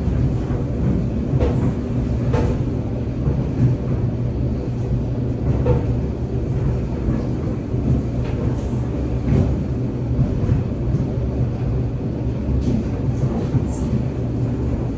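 Steady low mechanical rumble, with a few faint clicks over it.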